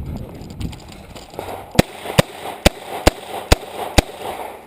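Six revolver shots from a Smith & Wesson 686, fired in a steady string about half a second apart, which empties the six-round cylinder.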